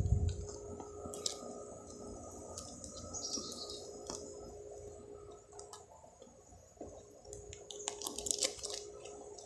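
Faint scuffs and scrapes of sneakers and hands on tree bark as a boy climbs a trunk. Short clicks are scattered through it, with a busier cluster near the end, over a faint steady hum. There is a low thump right at the start.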